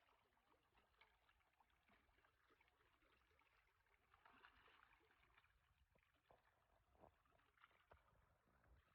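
Very faint lake water lapping at the shore: a soft haze of small splashes and ticks, a little fuller about halfway through.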